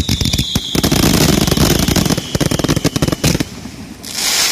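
Starmine fireworks barrage fired at close range: a dense, rapid volley of launch bangs and bursts. It stops about three and a half seconds in, followed by a brief hiss near the end.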